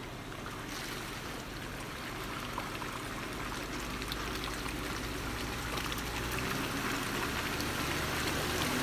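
Jeep Wrangler JK crawling through a muddy water-filled rut, its engine running low and steady under the slosh and splash of water pushed ahead of the tires. The water noise grows louder as the Jeep comes closer.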